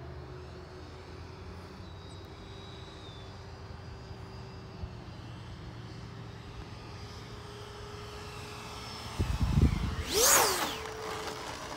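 Radio-controlled model jet whining steadily as it flies around, then sweeping past low and close about ten seconds in, loud for a moment with a steep drop in pitch. Wind buffets the microphone just before the pass.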